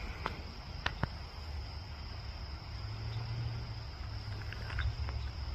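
Insects trilling steadily at one high pitch in summer woods, over a low rumble, with a few sharp clicks in the first second and again near the end.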